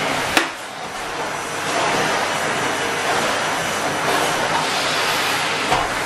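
Henry cylinder vacuum cleaner running with a steady rushing suction noise. A sharp click about half a second in is followed by a dip in the noise that builds back up over about a second, and there is another short click near the end.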